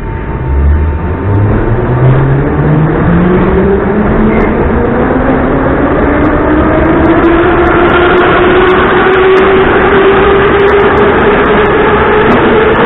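Moscow metro 81-714.5 car accelerating away from a station. The traction motors and gearing whine, rising steadily in pitch for about ten seconds and levelling off near the end, over the rumble of wheels on rail.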